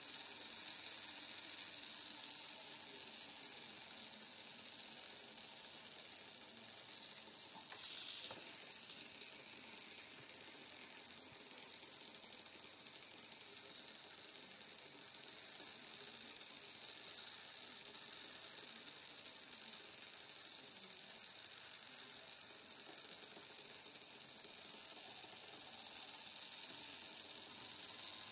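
Towerpro MG996R servo, converted to continuous rotation, running on its own with a steady high hiss from its motor and gear train, with a brief click about eight seconds in. It spins with a steady control signal while a finger touches a capacitor on its board, a fault the owner puts down to a shifted reference voltage.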